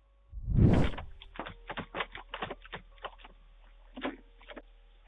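A loud thump close to the microphone, then a quick, irregular run of sharp knocks and taps, about four a second, for a few seconds.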